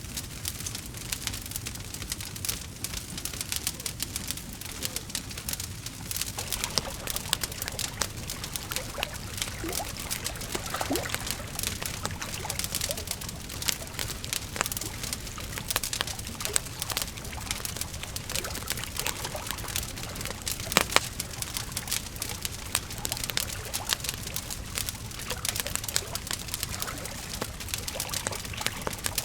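Campfire crackling steadily, a dense run of small pops and snaps over a low rumble of flame, with a few louder snaps, one standing out about two-thirds of the way through.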